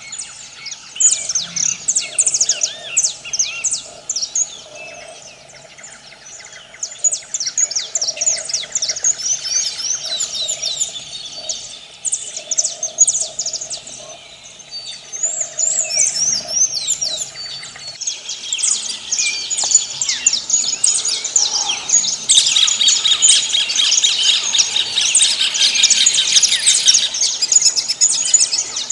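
A dense chorus of many birds chirping and calling in quick overlapping notes. It grows fuller and louder from about two-thirds of the way through.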